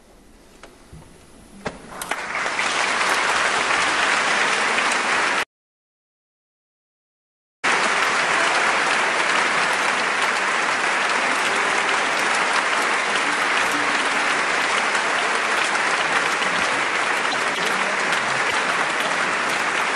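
Concert audience applauding: a few scattered claps about two seconds in quickly build into full, steady applause. The sound drops out completely for about two seconds near the middle.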